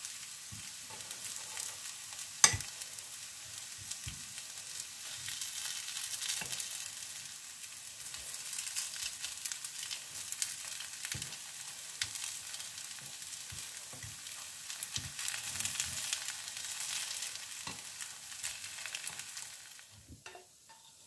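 Broccoli patties sizzling and crackling in a little oil in a frying pan, with knocks and scrapes of a spatula and fork against the pan as they are turned; one sharp knock about two and a half seconds in. The sizzle drops away near the end.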